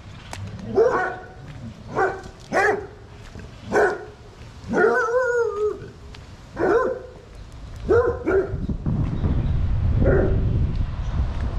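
A dog barking, about nine irregular barks with one longer, wavering bark about five seconds in. A low rumble builds near the end.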